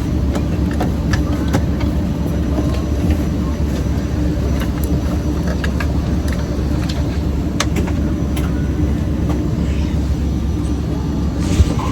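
Steady low drone of an airliner cabin at the gate, with a faint steady hum over the rumble. Scattered small clicks and knocks come from passengers settling in, and there is a sharper knock near the end.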